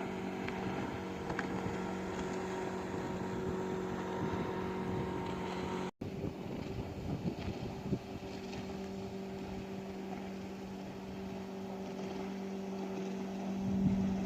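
Motorboat engine running at a steady pitch. The sound cuts out for an instant about six seconds in and rises briefly near the end.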